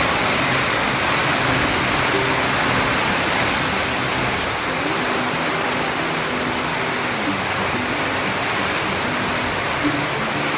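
Heavy rain falling in a steady, even hiss, a dense downpour.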